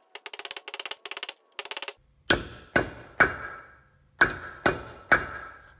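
Hammer tapping a brass drift to drive an oil seal into a wheel hub. First comes a quick run of light taps for about two seconds, then six harder ringing metal strikes in two sets of three, seating the seal flush.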